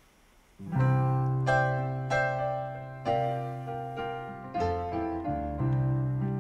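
Piano starting the introduction to a song after silence, about half a second in: chords struck in a steady pulse, a new one roughly every two-thirds of a second, each fading over a held low bass note.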